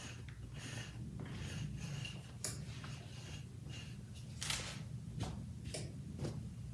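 Sticky lint roller rubbed over a black fleece hoodie in a series of short strokes, the strongest about four and a half seconds in, with a hand brushing the fabric. A low steady hum runs underneath.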